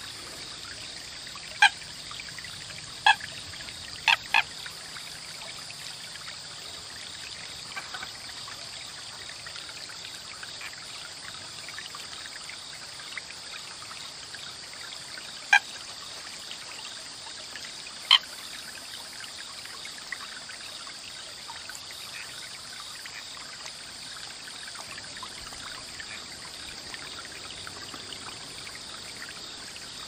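American coot giving about six short single-note calls, four in the first few seconds and two more around the middle, over steady trickling water.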